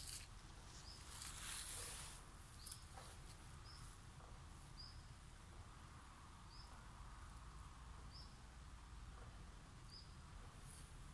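Near silence outdoors: faint rustling in the first two seconds, then faint short high chirps repeating about once a second.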